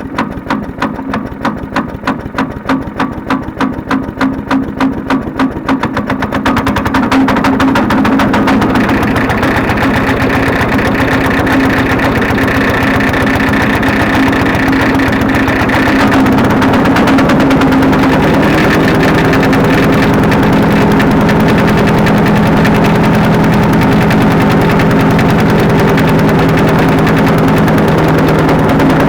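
Harbor Freight Predator wood chipper engine on a cold start after months of storage on old fuel, running on choke. For about six seconds it pulses unevenly, roughly three beats a second, then picks up to a louder, steady run. About 17 seconds in its pitch changes.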